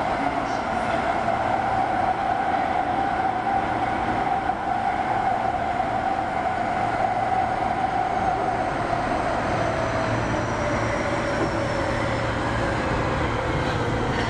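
Osaka Metro 25 series subway train running, a steady noise of wheels and motors under an even whine that begins to fall in pitch about two-thirds of the way through as the train slows.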